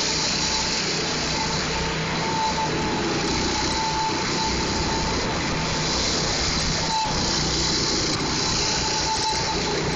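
Go-kart running steadily, a small engine's drone under a constant noise, with a faint steady high tone.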